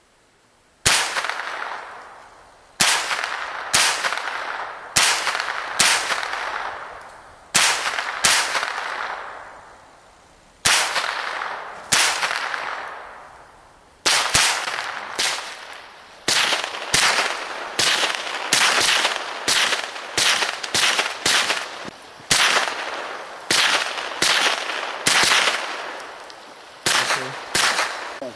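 Semi-automatic .22LR rifle shots, about thirty, each a sharp crack followed by an echo that fades over a second or two. The shots come a second or more apart at first, then faster, about two a second, from about halfway through.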